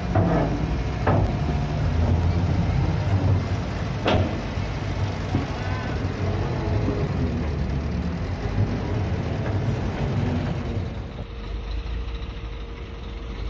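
Diesel engine of a Hitachi ZX130 amphibious excavator running under load as it crawls off a low-loader trailer on its pontoon tracks, with a few sharp metal clanks, the loudest about four seconds in. It gets quieter near the end.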